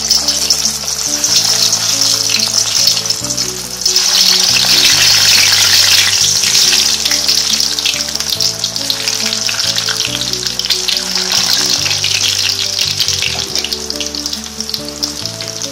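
Whole peeled potatoes deep-frying in hot oil: a loud, dense sizzle and crackle. It dips briefly and comes back stronger about four seconds in, as more potatoes are added.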